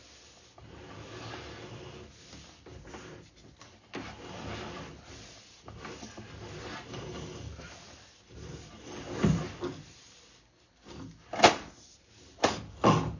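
Uneven rubbing and scraping, then a few sharp knocks and clunks in the last four seconds.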